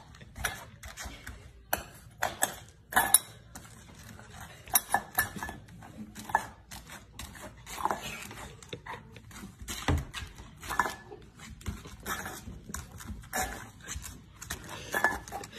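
A small upturned stainless-steel bowl clattering and scraping on a hard floor as a golden retriever puppy paws and bats at it, in a run of irregular metallic knocks and rattles.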